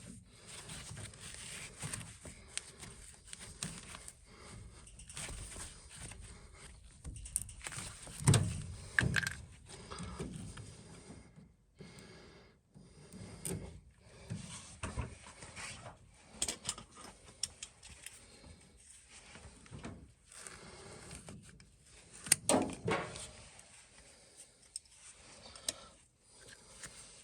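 Irregular handling noises of work on a furnace: clicks, scrapes and knocks, with two louder knocks about 8 and 22 seconds in.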